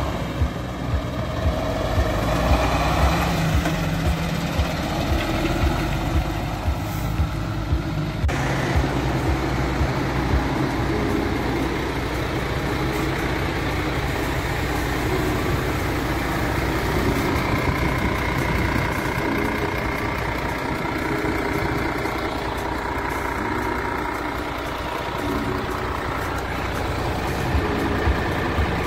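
MAN TGX 18.440 tractor unit's six-cylinder diesel engine: the truck drives up at low speed, then, after a sudden cut about eight seconds in, the engine idles steadily.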